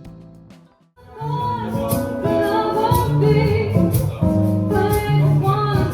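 A song with singing over a steady beat, starting loudly about a second in after a brief drop in a quieter instrumental passage.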